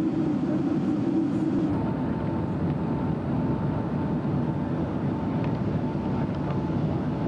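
Steady engine and airflow noise inside the cabin of a Boeing 767-300 descending on approach. A faint steady high tone joins the noise about two seconds in, as a lower hum fades.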